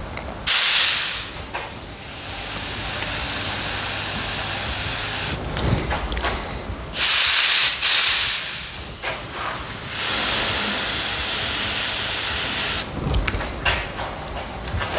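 Compressed-air paint spray gun hissing in bursts: loud short blasts about half a second in and again around seven to eight seconds, with longer, softer stretches of spraying between them and up to about thirteen seconds in.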